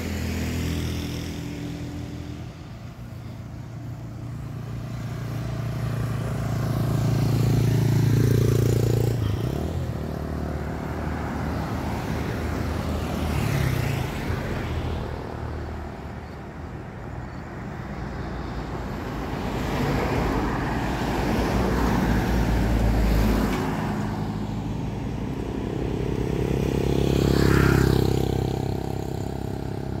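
Cars and a motorcycle passing one after another on a road. Each engine grows louder as it approaches and fades as it goes by, about four passes in all.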